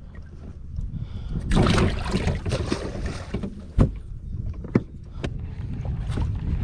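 Wind buffeting the microphone on an open bass boat, with a rustling stretch about a second and a half in and a few sharp knocks, the loudest about four seconds in.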